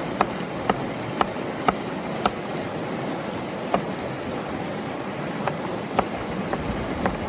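Steady rushing of river water, with about ten sharp, irregularly spaced clicks or cracks over it.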